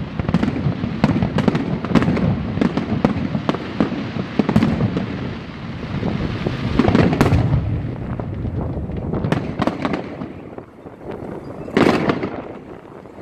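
Aerial firework shells bursting in a display finale: many rapid bangs overlapping, thinning out in the second half, with one loud bang near the end.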